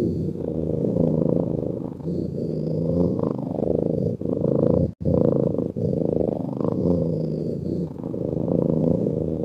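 Domestic cat purring: a continuous low buzz that swells and eases with each breath, about once every two seconds, broken by a very short cut-out about halfway through.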